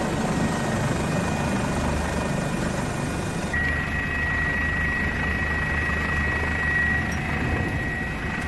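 Helicopter running steadily, a low rotor drone with a high steady turbine whine; the sound shifts abruptly about three and a half seconds in, as at a cut between shots.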